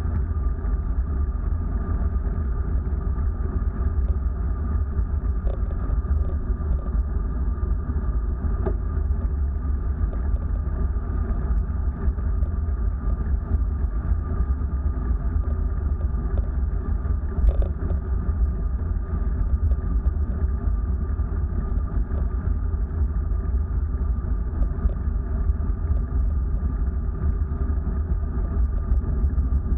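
Steady wind and road rumble from a moving vehicle, deep and unbroken, with a faint steady whine above it.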